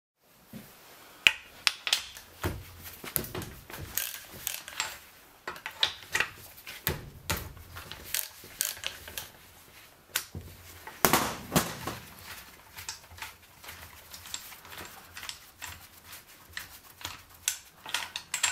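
Ratchet wrench with a long thin socket clicking in short runs, with metal tool clinks and knocks, as the bolts sunk in the Yamaha XT600 engine's cylinder bolt holes are loosened.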